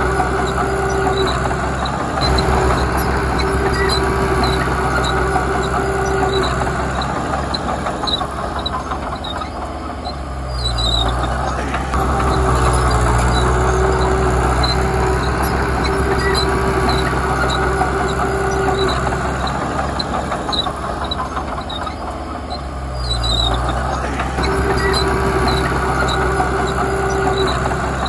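Komatsu D31P crawler bulldozer's diesel engine working, its low note swelling twice under load, once about a third of the way through and again past three-quarters. A regular high metallic clink sounds about twice a second throughout.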